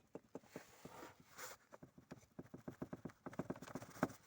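A filter housing's pin rattling in its rubber mounting grommet as it is rocked, giving a fast, faint run of light knocks about seven or eight a second. The grommet has gone hard and lost its elasticity with age, which lets the pin knock about in its hole; over bumps this makes the car's rattle.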